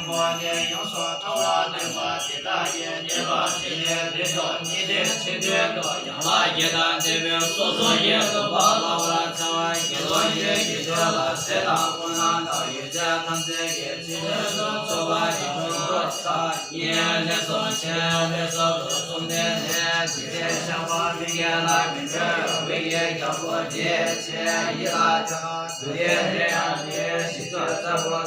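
Music with a chanted vocal, in the manner of a Buddhist mantra, sung over a steady sustained drone.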